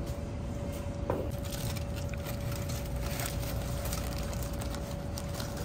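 Steady low rumble of room noise with a constant faint hum, and a few light clicks.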